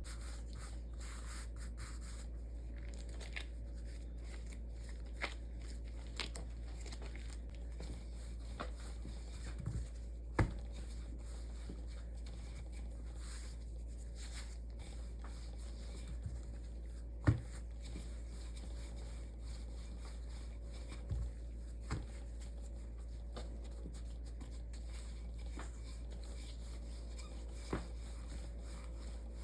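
A steady low hum with a scattered series of light clicks and knocks, some spaced a few seconds apart. The two loudest knocks come about a third of the way in and just past halfway.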